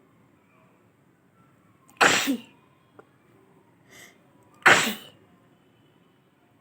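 A woman sneezing twice, loudly, the sneezes about two and a half seconds apart, each lasting about half a second.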